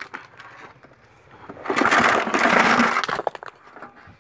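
Broken stones tipped from a plastic tub clattering down into a dug earth pit, filling a soak pit with its stone layer. A dense rush of rattling impacts starts nearly two seconds in and lasts about a second, followed by a few single knocks of stones settling.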